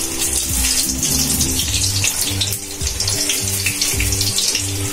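Gram-flour-battered pumpkin slices deep-frying in hot oil in a steel kadai, a steady sizzle full of fine crackles. Background music plays underneath.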